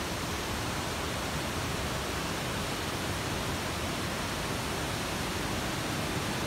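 Steady rushing of a rocky mountain river: an even hiss with no changes.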